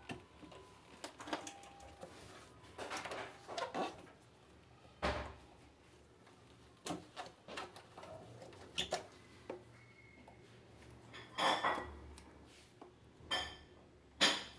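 Irregular clicks, knocks and scrapes of hands working a washing machine's rubber drain hose, plastic pump housing and wire spring hose clamp, with a few louder clattering knocks near the end.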